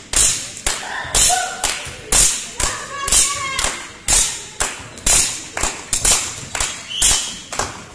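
Sharp knocks repeating about twice a second, loud and echoing around a sports hall, with a couple of short shouts in between.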